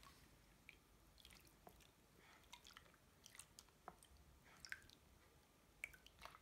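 Feet moving and rubbing together in a basin of water: faint, irregular small splashes, drips and wet squishes.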